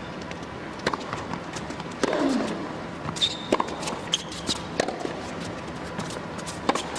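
Tennis rally on an indoor hard court: a serve about a second in, then racket-on-ball hits and ball bounces every second or so, over a hushed arena crowd. A player's short grunt follows a hit just after two seconds, and a sneaker squeak comes a little after three seconds.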